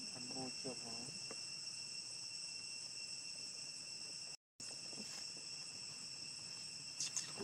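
Steady insect chorus, a constant high-pitched drone in several bands, with a brief dropout about halfway through.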